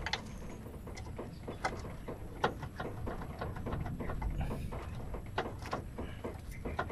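Irregular small clicks and scrapes of hands working an oil syringe in the end of a Suzuki S-Presso's clutch cable and pushing and pulling the cable, over a low steady rumble.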